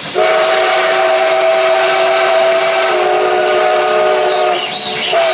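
Five-chime steam whistle of locomotive no. 620 blowing a loud, steady chord over a hiss of steam. The chord breaks off briefly near the end and then sounds again.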